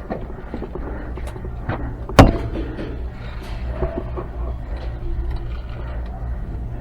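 Airsoft gunfire: scattered sharp clicks and snaps of shots and BB impacts, with one loud crack about two seconds in, over a steady low hum.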